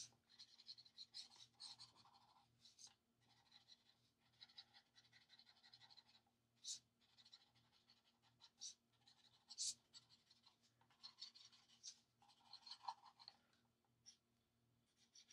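Faint scratching of an alcohol marker's tip rubbed back and forth over paper, in short runs of strokes with brief pauses between them.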